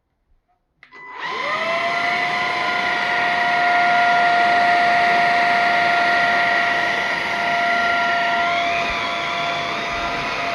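Atvel G9 cordless handheld vacuum cleaner switched on about a second in: its motor spins up quickly to a steady high whine over rushing air. The pitch shifts a little about eight and a half seconds in.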